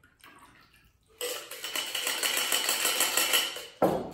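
Ice rattling inside a metal cocktail shaker tin while a drink is double-strained through a fine strainer. Near the end comes one sharp knock as the tin is set down on the wooden bar top.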